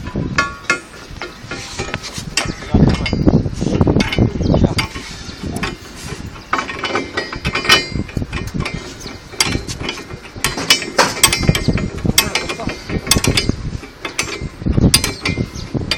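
Metal fittings and tools being worked on a pipe joint: repeated irregular ratchet-like clicks and clanks, with heavier knocks now and then.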